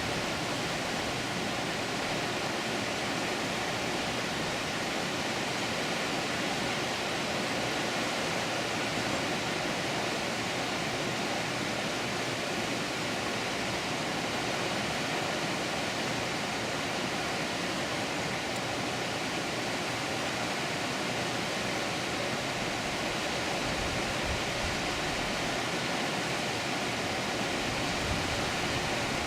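Water flowing at a dam: a steady, even noise that does not change.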